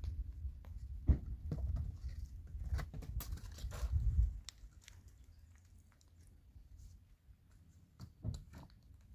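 Scuffs, steps and knocks of a person climbing over bare rock and onto a mud wall, with a low rumble through the first half. It goes quieter after that, with a couple of knocks near the end.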